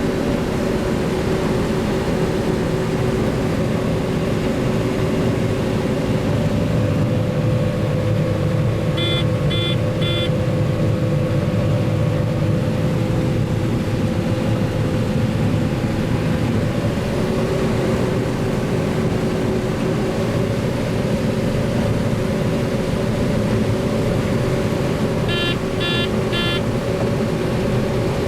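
Diesel engine of heavy farm harvest machinery running steadily under load, with an electronic warning beeper giving three quick beeps, twice.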